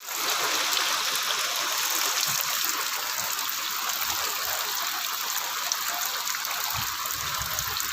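Steady rain falling, an even hiss, with some low rumbling near the end.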